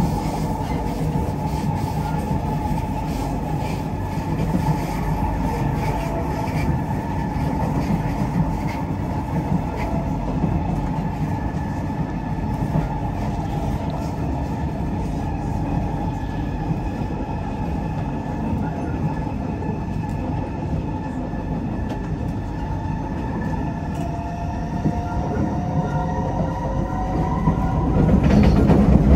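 Singapore MRT East-West Line train running between stations: a steady rumble of wheels on track, with faint high tones from the running gear. Near the end several tones glide upward and the rumble grows louder.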